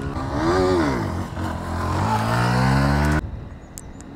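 Motorcycle engine revving, its pitch rising and falling and then climbing again. A little over three seconds in, the sound cuts off abruptly and a much quieter engine sound remains.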